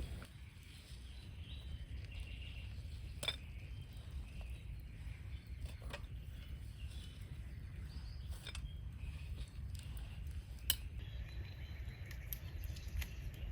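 Rural outdoor ambience: a steady low rumble with a few scattered sharp clicks, and faint bird calls.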